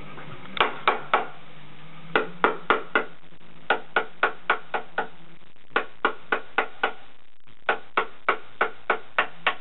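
Mallet striking a solid teak furniture panel: sharp wooden knocks in runs of three to seven, about three a second, with short pauses between runs.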